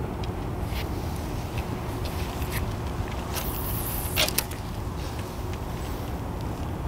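Steady low outdoor harbour rumble with a faint hum, broken by a few small clicks, a brief hiss a little past three seconds in and a sharp click just after four seconds.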